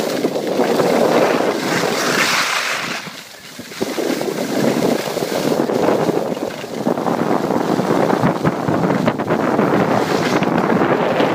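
Wind rushing over the microphone while skiing downhill, mixed with the hiss and scrape of skis sliding on packed snow. It dips briefly a little past three seconds in.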